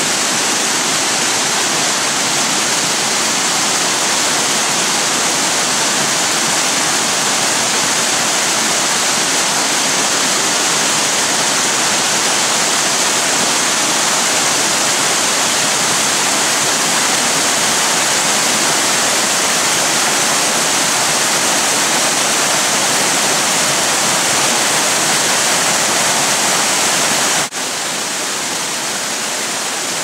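Small waterfalls pouring over mossy rock: a steady, loud rush of falling water. It breaks off for an instant near the end and then runs a little quieter.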